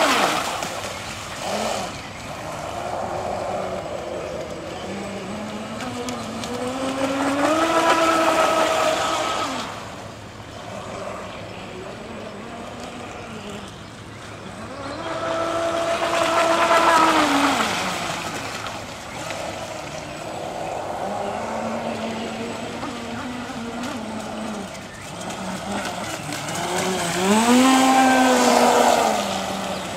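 Radio-controlled model boat's motor running at speed, its pitch climbing and falling as the throttle opens and eases. It swells loudest three times, about 8, 17 and 28 seconds in, as the boat makes fast runs.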